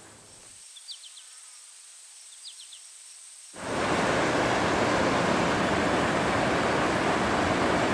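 Faint high insect buzz with a couple of short clusters of high chirps, then, about three and a half seconds in, the loud steady rush of a high-gradient mountain river's whitewater pouring over boulders cuts in and holds.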